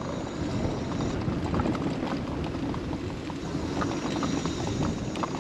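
Ride noise from a small vehicle rolling along an asphalt road: a steady low rumble of tyres and motor, with scattered small ticks.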